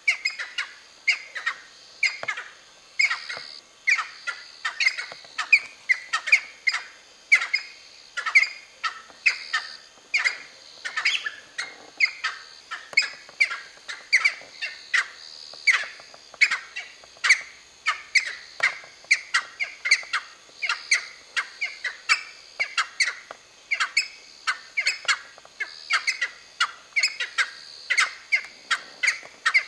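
Cheer pheasants calling: an unbroken run of short, sharp calls, two or three a second, over a steady high hiss.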